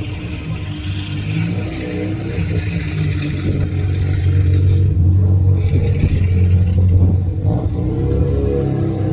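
A car engine running and revving, growing louder over the first few seconds and then holding steady, with its pitch shifting near the end.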